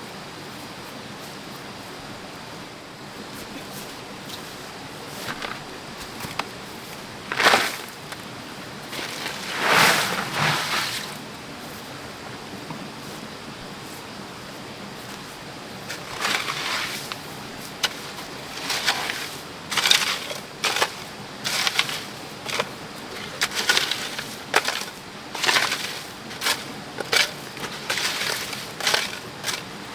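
Short, sharp scraping or crunching strokes of hand work: two isolated ones early on, then a fairly regular run of about one stroke a second through the second half, over a steady background hiss.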